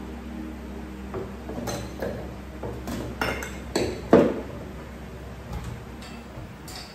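Bottles clinking and knocking together as they are taken out of and moved about in a kitchen cabinet: a run of separate clinks and knocks, the loudest about four seconds in.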